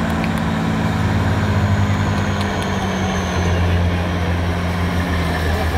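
Trial truck's engine running under load as it crawls over a steep rise, its note dropping a little about three seconds in.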